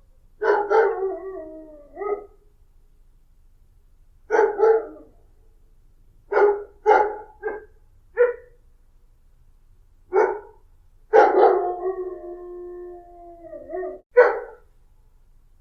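A dog barking in short single and double barks with pauses between them. About eleven seconds in, one bark draws out into a long, held howl-like call lasting about three seconds, followed by one more sharp bark.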